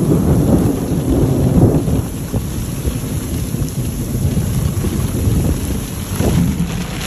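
Heavy rain and hail pouring down in a thunderstorm, with a deep low rumble that is loudest in the first two seconds and then eases slightly.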